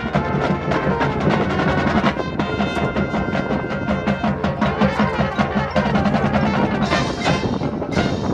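High school marching band playing, with rapid drum strokes to the fore over held pitched tones.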